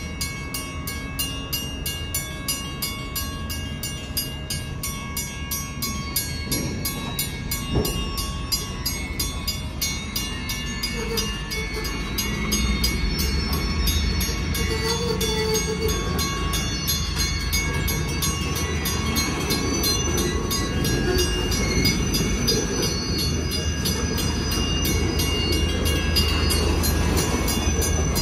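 Freight cars rolling across a street grade crossing: a steady rumble and clatter of steel wheels on the rails, with thin high wheel squeals, over a grade-crossing bell ringing fast and evenly. The rolling gets louder about twelve seconds in.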